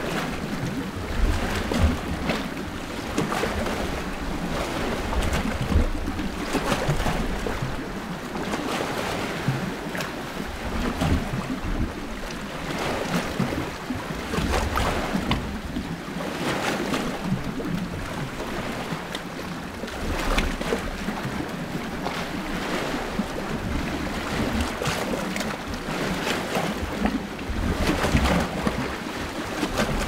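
Small sea waves washing and lapping at the shore, recorded just above the waterline: a steady wash of water with a fresh surge every second or two. Low rumbles of wind on the microphone come and go underneath.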